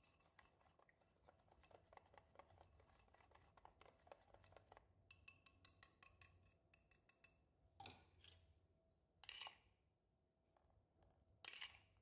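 Faint, quick clicking of a wire whisk against a bowl as powdered-sugar glaze is whisked, with three short, louder strokes in the second half.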